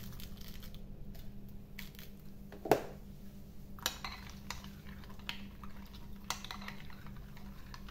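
A metal spoon stirring a liquid marinade in a glass bowl, clinking against the glass several times; the sharpest clink comes a little under three seconds in.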